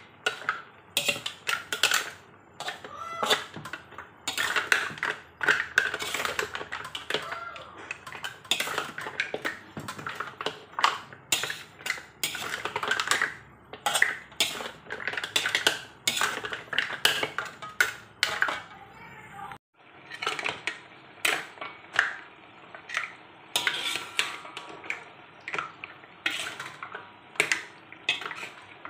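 A metal spatula clattering and scraping against a large aluminium wok as mussels in their shells are stirred and tossed: a steady run of irregular knocks and clacks.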